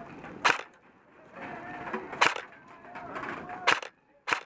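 Airsoft gunfire in single shots: four sharp cracks, roughly a second to a second and a half apart.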